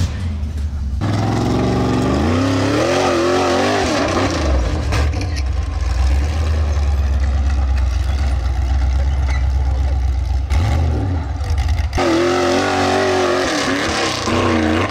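Rock bouncer buggy's engine revving hard under full throttle as it claws up a steep dirt hill, its pitch rising and falling, then holding a heavy low drone in the middle.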